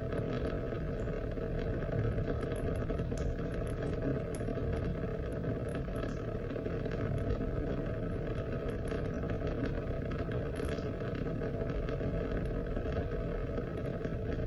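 Steady, unbroken rain and water noise: an even rushing sound, heaviest in the low range, with faint scattered ticks of drops.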